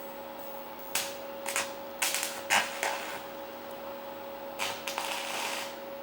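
Metalwork for a welded iron corner: irregular sharp clicks and clacks of metal being handled, then a crackling hiss lasting about a second near the end, over a steady electrical hum.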